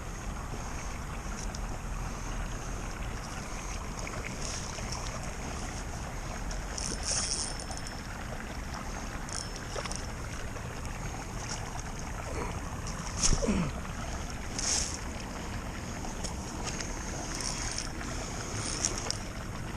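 Wind buffeting the microphone over running creek water, with a few short clicks or scrapes and one louder sudden sound that drops quickly in pitch about two-thirds of the way in.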